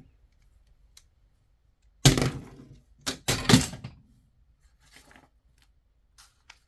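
A loud clattering thump about two seconds in, then a quick run of sharper knocks about a second later, followed by a few faint clicks.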